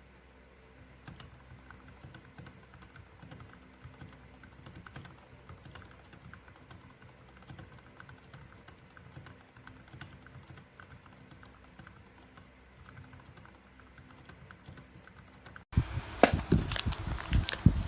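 Typing on a mechanical keyboard: fast, irregular key clicks. Quiet at first; near the end, after a sudden cut, the key strikes are much louder and closer.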